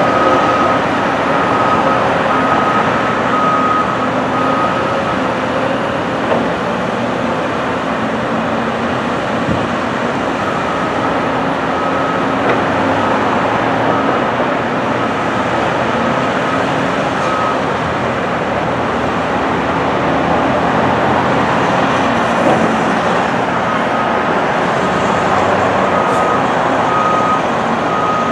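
Diesel engine of a Caterpillar excavator running steadily under work. A backup alarm beeps over it in three spells of evenly spaced beeps: at the start, from about ten seconds in until about eighteen, and again near the end.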